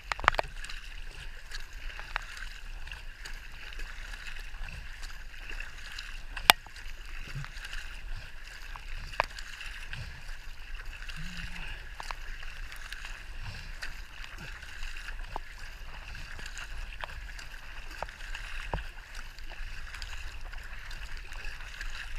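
Two-person K-2 racing kayak being paddled on calm water: a steady hiss of water over the paddles and along the hull, with scattered light clicks and knocks from the paddles. The loudest is one sharp click about six and a half seconds in.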